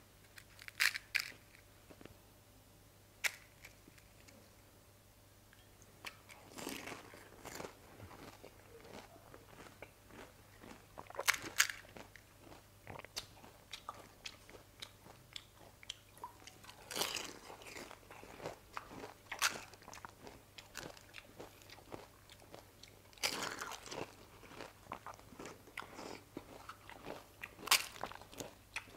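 Crisp fried panipuri shells being cracked open with the fingers: sharp crunchy cracks and short crackles every few seconds, with quiet in between.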